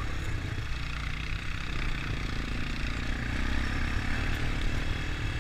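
An all-terrain vehicle's engine running steadily as it rides along, a continuous low rumble.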